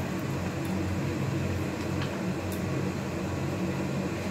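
Steady hum and hiss of a gas stove while cooking oil heats in a steel wok, just short of frying temperature, with a few faint ticks.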